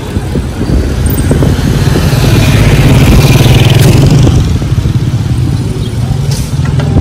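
A motor vehicle's engine drones steadily along with road and wind noise while moving, growing a little louder around the middle.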